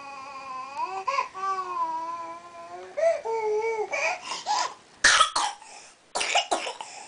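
A young girl sings in long, drawn-out notes, then breaks off, and about five seconds in starts a run of loud, sharp coughs.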